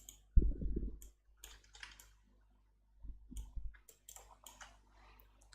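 Computer mouse clicks and keyboard key presses, scattered and light, with two louder low muffled bumps about half a second in and again around three seconds.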